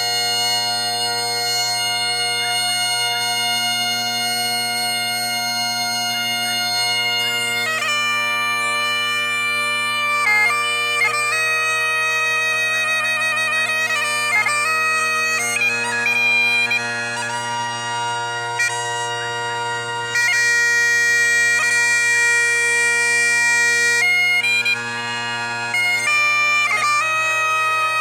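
Bagpipes playing over steady, unbroken drones: a single held chanter note at first, then a melody with quick ornamented note changes starting about eight seconds in.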